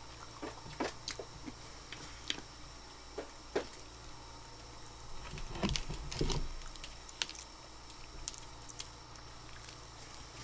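Close-miked eating sounds of chicken wings being chewed: scattered wet mouth clicks and smacks, with a denser, louder stretch of chewing about six seconds in.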